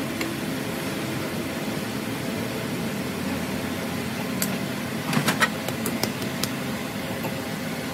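Steady hum of workshop machinery, with a handful of sharp metallic clinks about four and a half to six and a half seconds in as a wrench works the jaws of a four-jaw lathe chuck clamping a piston.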